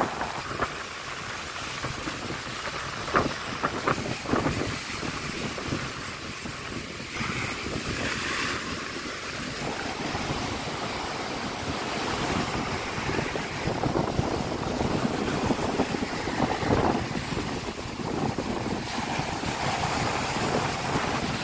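Storm surf breaking and washing over a pebble beach, rising and falling as each wave comes in, with wind noise on the microphone.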